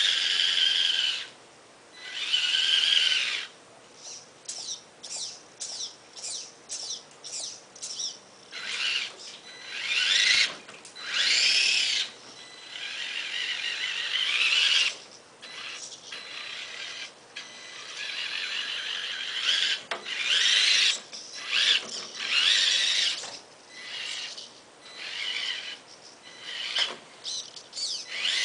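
Electric motor and gear train of a Tamiya radio-controlled Ford Bronco rock crawler whining in repeated bursts as the throttle is worked. Many bursts are short blips, and in the longer runs the whine rises in pitch as the motor speeds up.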